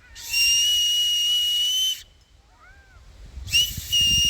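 Acorn-cap whistle blown across the thumbs: a steady, high-pitched whistle lasting a little under two seconds, then a second blast that starts near the end.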